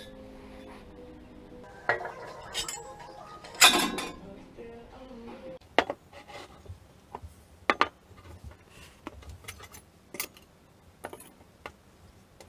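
Scattered clinks and knocks of cut sheet-steel angel wings and glass wine bottles being handled and set down, the loudest a short clatter about four seconds in.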